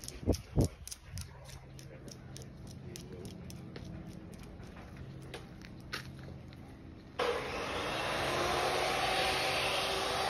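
A metal chain dog leash clinking lightly about every quarter second at a walking pace, over a low steady hum, after two short thumps at the start. About seven seconds in, a loud even rushing noise starts suddenly and drowns it out.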